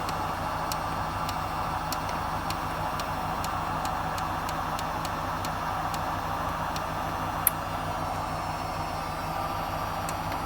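Hotpoint tumble dryer running: a steady drone and hum from the turning drum, with light irregular ticks and one sharper click about seven and a half seconds in.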